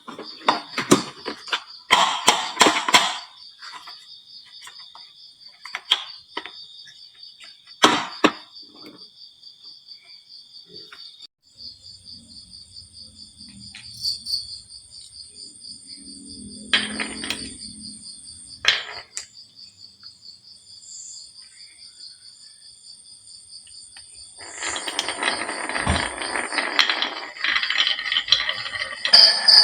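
Glass marbles clicking and knocking on a wooden marble run: single sharp clicks every few seconds, then many marbles rattling down together over the last few seconds. A steady high-pitched whine sits underneath throughout.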